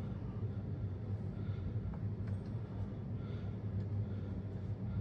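A steady low hum, with a few faint light clicks about two seconds in from the combination dial of an old safe being turned.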